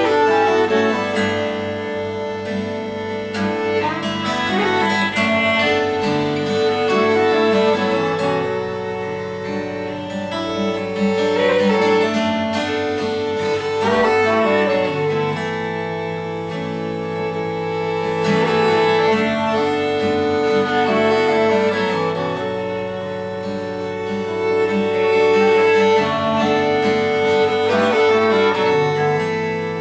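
Acoustic trio of violin, clarinet and acoustic guitar playing an instrumental piece: bowed violin and clarinet carry the melody in long held notes over guitar accompaniment.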